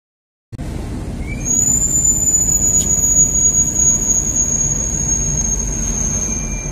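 A deep engine-like rumble with a high, steady whine over it that comes in about a second in and slowly sinks a little in pitch.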